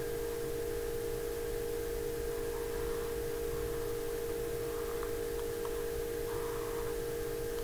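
Steady electrical hum with a faint hiss, and a few faint ticks about five seconds in.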